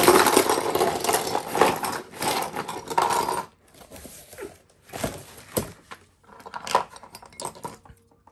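Packaging rustling and crinkling as it is pulled apart for about three and a half seconds. After that come a series of separate light clicks and clinks, as small metal and plastic Beyblade parts knock together.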